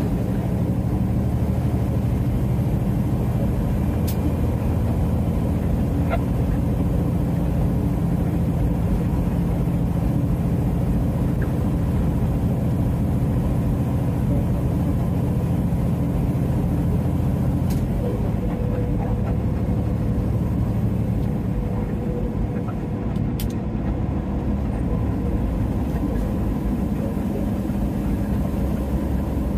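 Semi-truck diesel engine running steadily at highway cruise, heard from inside the cab together with the tyre and road noise, with a few faint ticks.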